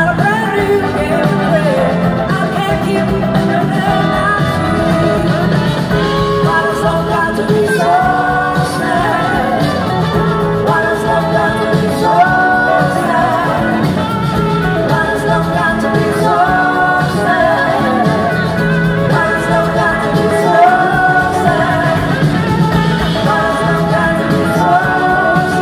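Live blues-rock band playing, with electric guitars, drums and a woman singing.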